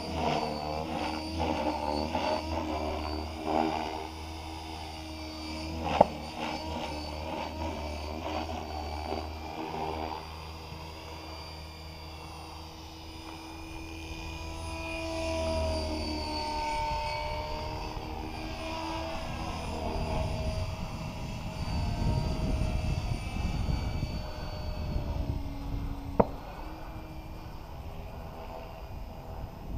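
Gaui X5 electric RC helicopter in flight: the motor and rotor whine rises and falls in pitch as it manoeuvres. In the second half gusts of wind rumble on the microphone, and there are two sharp clicks, about six seconds in and near the end.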